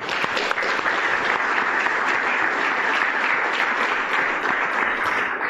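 Audience applauding, starting all at once and fading away near the end.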